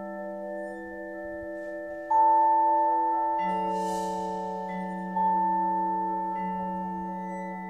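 A percussion quartet plays a quiet, slow passage on mallet instruments, the notes ringing on and fading slowly. New notes are struck about two, three and a half, and five seconds in, with a brief cymbal shimmer around the middle.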